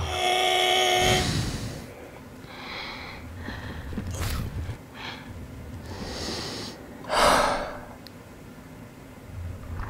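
Sound effects of a man's gasps and heavy, strained breaths as he transforms, in short separate bursts, the loudest about seven seconds in. Before them, for about the first second, a held pitched tone.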